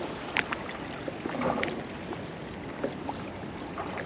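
Small waves slapping and lapping against a rigid inflatable boat's hull, with wind on the microphone. A few sharp clicks stand out, the loudest about half a second in and another about a second and a half in.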